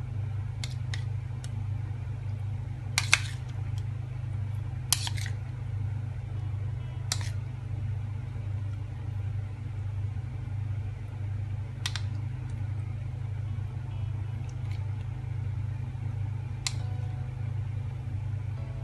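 A metal spoon clinks now and then against a china bowl and a glass dish as diced fruit cocktail is spooned out and spread, with the loudest clinks about three and five seconds in. A steady low hum runs underneath.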